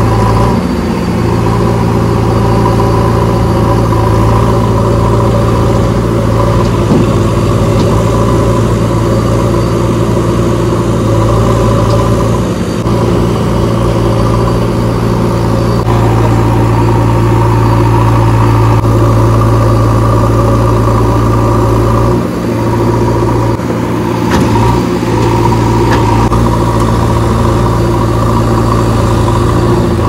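JCB backhoe loader's diesel engine running steadily under load while the backhoe arm works, the pitch holding with a couple of brief dips partway through.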